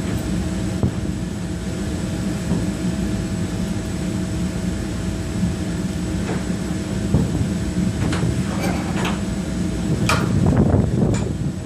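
Boat engine running with a steady low drone. A few sharp cracks come near the end, followed by a brief louder rumble.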